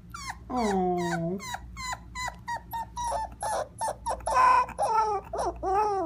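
Cocker spaniel puppy's first attempts at howling: a quick run of short, high yips and whines, about three a second, drawing out into longer howls that are loudest about four and a half seconds in.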